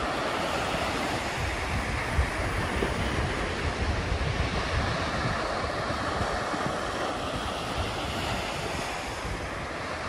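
Small waves breaking and washing up a sandy beach: a steady surf wash, with wind rumbling on the microphone underneath.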